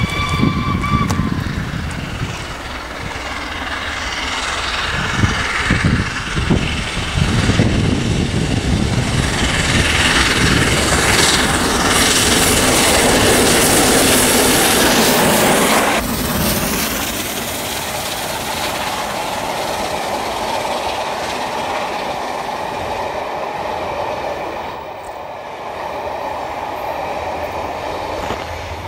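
LNER Peppercorn A1 Pacific steam locomotive 60163 Tornado gives a brief whistle, then its exhaust and wheel-on-rail noise build loud as it works a train past at close range. About halfway through the sound changes suddenly to a rake of passenger coaches rolling by with steady wheel and rail clatter.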